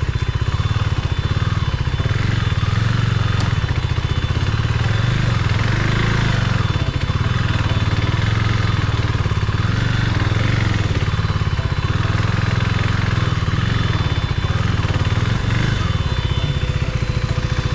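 KTM 390 Duke's single-cylinder engine running steadily as the motorcycle is ridden, its firing pulses in an even low drone with a hiss over it.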